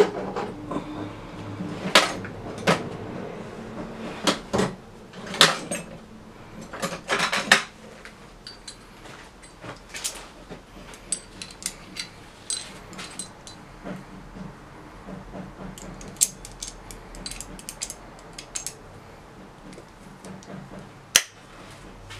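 Rummaging through metal hand tools for a drill bit and a pair of vise grips: scattered clinks, jangles and sharp knocks, some louder clatters among lighter jingling.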